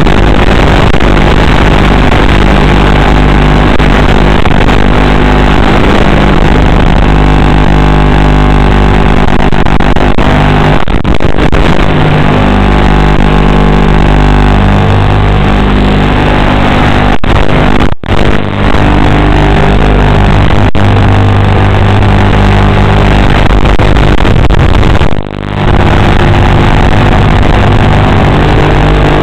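An FPV drone's motors and propellers buzzing continuously, loud and distorted, as picked up by the onboard camera. The sound dips out briefly twice, about 18 and 25 seconds in.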